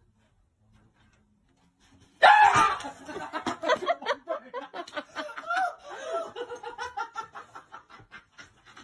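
Near silence, then about two seconds in a person bursts out laughing and keeps on in short, breathy pulses of laughter.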